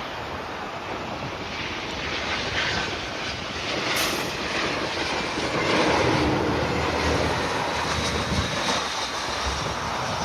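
Jet airliner passing by: the engine roar swells to its loudest about six seconds in, and its pitch falls as it goes past.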